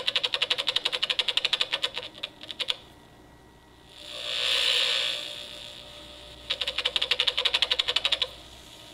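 Small 8-ohm speaker driven by a breadboarded LM741/LM386 op-amp amplifier, reproducing what a miniature microphone picks up. It gives a fast, even run of clicks about nine a second, a pause, a hiss that swells and fades, then a second run of clicks.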